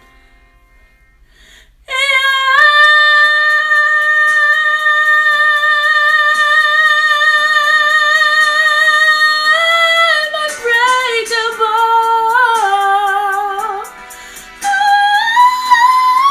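A woman singing high: about two seconds in she takes one long held note for around eight seconds, then sings a run of shorter notes stepping downward, breaks briefly, and ends on a note sliding upward.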